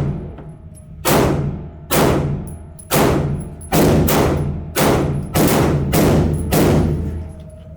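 A string of about nine gunshots, fired roughly one every half second to a second, each followed by a ringing echo off the walls of an indoor shooting range.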